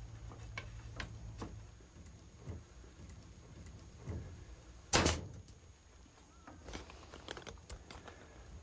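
Scattered light taps and clicks with one loud wooden knock about five seconds in, from work on a greenhouse door: cedar door stops being nailed in with finish nails and the door being shut against them.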